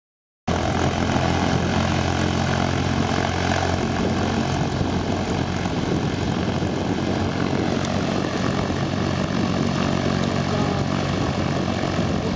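Cessna 150's four-cylinder Continental O-200 engine and propeller running steadily, cutting in suddenly about half a second in.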